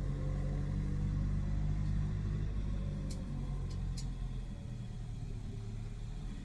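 Car in motion, a steady low rumbling drone with several humming tones, which the owner records as an abnormal noise from the rear left wheel hub. Three short sharp ticks come about three to four seconds in.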